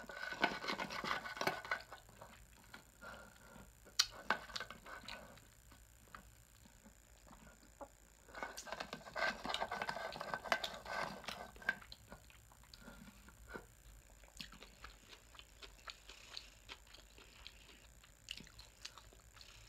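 Sipping through a straw from a glass mason-jar mug: two stretches of slurping, one at the start and one from about eight to twelve seconds in, with small scattered clicks and taps between and after.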